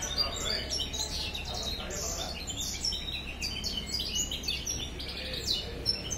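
Caged songbirds singing: quick, varied runs of high chirps and trills, one after another without a break.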